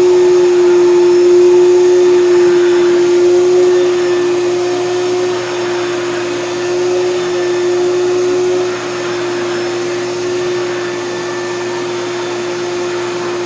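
Hoover canister vacuum cleaner running, its motor giving a steady whine at one pitch over a rushing of air; the sound drops slightly in level about nine seconds in.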